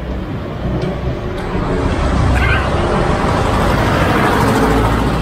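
A motor vehicle passing close by: engine rumble and road noise growing louder over the first two seconds, then holding loud.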